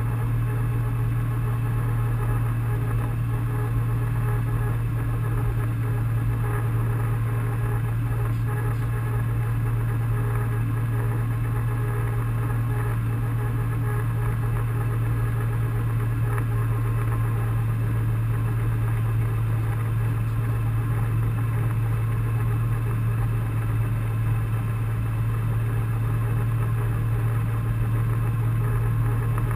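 International Harvester tractor's engine running steadily while pulling a plow through the field, heard from inside the cab as a constant low drone.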